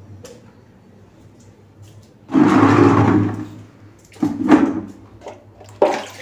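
Water scooped with a plastic dipper from a tub and poured into a bucket: one splashing pour of about a second, then two shorter splashes.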